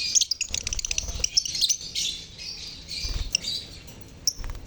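A colony of lovebirds chattering together in high, shrill chirps, with rapid stuttering runs of calls about half a second to two seconds in, a short lull near the end, then a fresh outburst.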